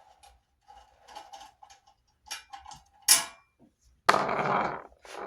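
Small metal clicks and clinks of a hand tool working the bolts on a scooter's front light, with a sharp click about three seconds in and a louder rattle lasting nearly a second about four seconds in.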